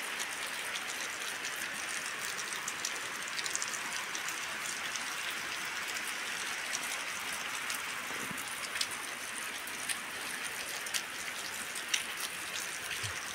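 Rain falling steadily: a continuous even hiss with many small sharp ticks of individual drops hitting close by.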